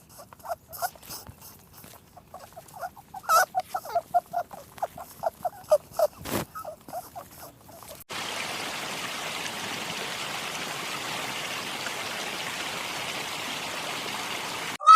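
A rapid run of short, repeated animal calls for about eight seconds, then a sudden switch to a steady rushing noise.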